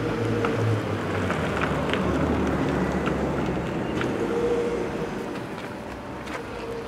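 Street traffic: a motor vehicle's engine running close by over the general hum of city traffic, its low drone dropping in pitch about a second in, with the sound fading away near the end.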